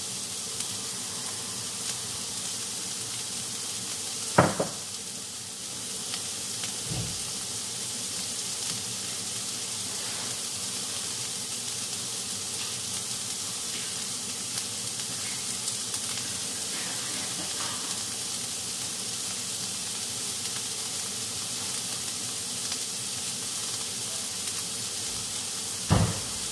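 Diced carrot, bell pepper and onion sizzling steadily in oil in a frying pan, with two sharp knocks, one about four seconds in and one near the end.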